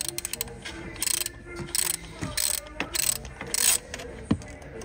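Ratchet wrench clicking on a run of short back-and-forth strokes, about six bursts of ratchet clicks spaced evenly, as a Torx fastener is worked on the engine, with one sharp knock near the end.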